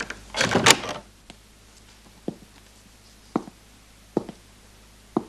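A short scuffing rustle about half a second in, then slow footsteps: single dull knocks of boots on a wooden floor, about one a second, four in all.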